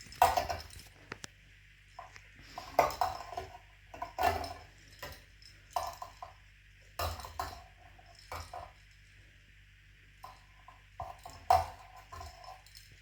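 Irregular metallic clinks and rattles, a sharp one every second or two, as a stuck ring-necked parakeet struggles against its cage or toy.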